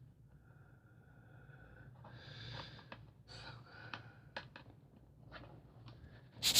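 Faint handling sounds: a soft rustle or breath about two seconds in, then a scatter of small clicks and taps as a phone charger's plug and cable are handled and plugged into a docking station.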